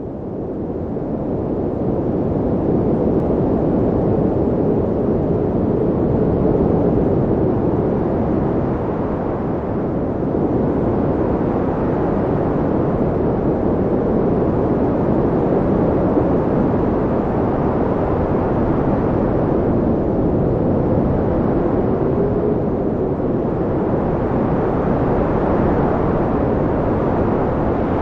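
Strong wind blowing steadily, fading in over the first two seconds, with a faint wavering howl through it.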